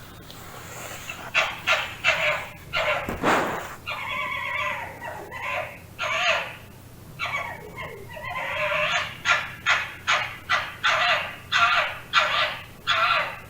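Fox barking: a run of short, repeated calls that settles into a steady pace of about two a second in the second half.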